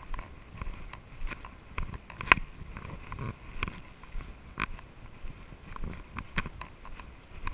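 Footsteps crunching along a dirt trail strewn with dry leaves and patches of snow, about two a second, with one sharper crunch a little past two seconds in, over a low rumble of wind and movement on the camera mic.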